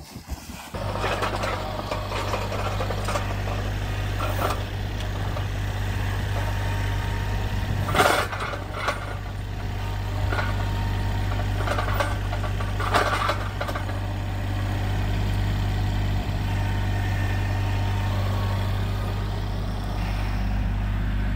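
Compact tractor's engine running steadily while its front loader and pallet forks lift a large tractor tire, with a few sharp knocks along the way, the loudest about eight seconds in.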